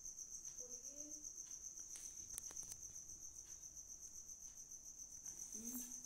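A faint, steady, high-pitched insect trill, like a cricket's, pulsing fast and evenly, with a few faint clicks around the middle.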